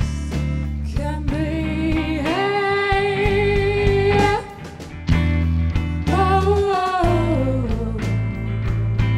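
Live student rock band playing: a female lead singer holds long notes with vibrato over electric bass, electric guitar and a drum kit. The band drops out briefly near the middle before coming back in.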